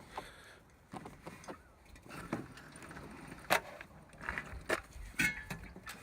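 Handling noise from a heavy mini bike being lifted and wrestled out of a car: scuffling and scraping broken by about five sharp knocks and clunks.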